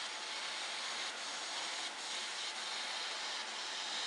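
Electric arc welding on a steel ship hull seam: a steady hiss from the welding arc.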